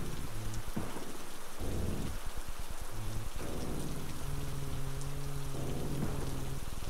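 Background music of low sustained chords that change every second or so, over a steady rain-like hiss.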